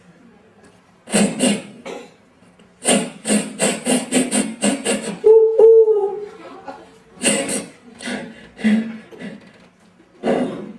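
A man making vocal sound effects with his mouth, beatbox-style: quick runs of breathy puffs and hisses, with a short held, slightly wavering tone about halfway through.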